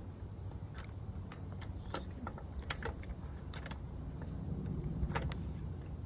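Scattered metal clicks and clinks, about half a dozen, as a chrome lug nut remover tool and its sockets are seated on the wheel nuts and its handle is handled, over a low steady rumble.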